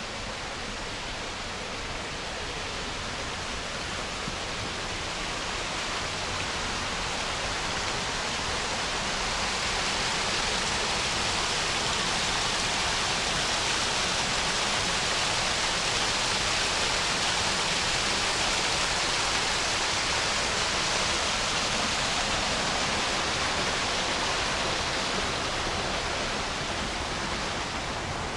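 Water pouring over low concrete weirs in a drainage canal: a steady rushing that swells to its loudest through the middle and eases off a little near the end.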